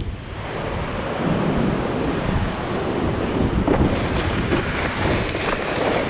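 Wind buffeting the microphone over the rush and splash of water under a kiteboard.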